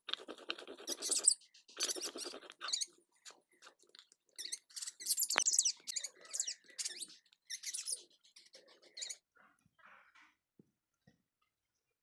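Spice paste being ground by hand on a stone slab (shil): a series of uneven scraping, rubbing strokes of stone on stone, with small clicks between them, growing fainter and sparser over the last few seconds.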